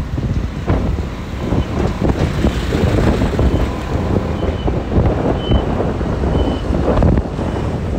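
Road traffic noise: a truck and a bus passing close, with wind rumbling on the microphone. A faint short high beep repeats about once a second.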